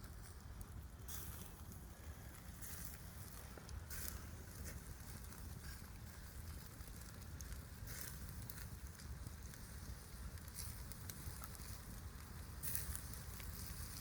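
Wood campfire burning, with a sharp crackle or pop every couple of seconds over a steady low rumble.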